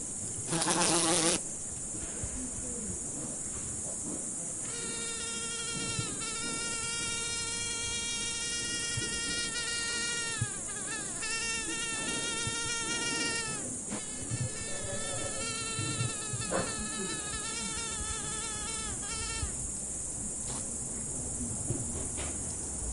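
A mosquito whining in flight close by: a high, even buzz that comes and goes in stretches of several seconds between about five and twenty seconds in, its pitch bending as it flies, over a steady high hiss.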